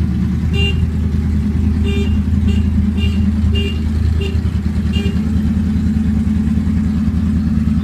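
2013 Yamaha R1's crossplane inline-four engine running steadily through a newly fitted aftermarket exhaust. About eight short, high chirps sound at irregular intervals over the first five seconds.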